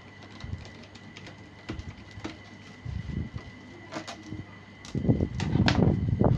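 Plastic laptop case being pried open by hand: scattered small clicks and knocks, building near the end into a louder stretch of rubbing and knocking as the casing is worked loose.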